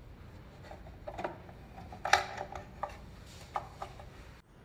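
A few light knocks and clunks as the machine's face panel is handled and lifted off its housing, the loudest clunk about two seconds in.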